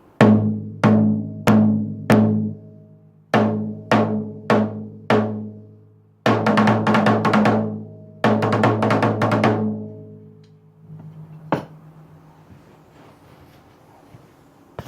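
1965 Slingerland Sound King 13x9 tom with single-ply heads, a Remo coated head on top, damped with a strip of gaff tape between two lugs, being struck: two sets of four single hits, each ringing out with a low tone, then two runs of fast hits. A single sharp click follows near the end.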